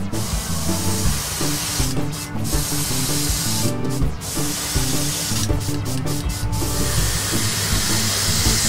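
Airbrush hissing as it sprays paint onto a soft-vinyl figure, the spray breaking off briefly about two, four and six seconds in and getting stronger near the end.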